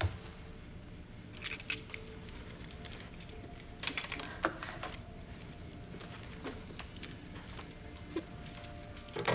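Light metallic clinking and clattering, like small medical instruments being handled. It comes in two short bunches, about a second and a half in and about four seconds in, with a sharper clatter near the end.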